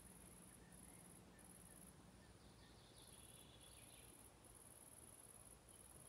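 Near silence with faint insects chirring outdoors: a high, steady buzz broken by short gaps about once a second.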